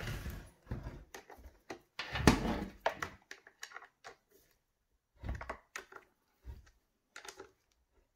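Scattered clicks and knocks of a wrench on the guide-bar nuts of a plastic-bodied electric chainsaw being handled on a metal workbench, as the nuts are tightened after the chain has been tensioned. A heavier knock comes about two seconds in.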